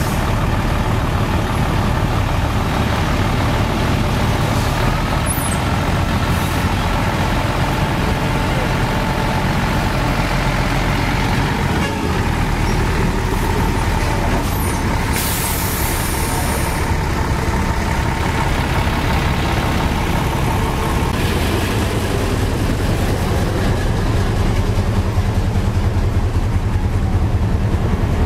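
Heavy tank-transporter trucks' diesel engines running close by in a steady low rumble, with a short air-brake hiss about halfway through. The rumble grows louder near the end as a loaded lowboy trailer passes close.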